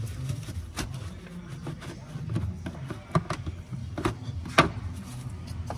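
Plastic engine air-intake duct and housing being handled and worked loose by hand, giving scattered clicks and knocks, the sharpest about three seconds in and again about four and a half seconds in.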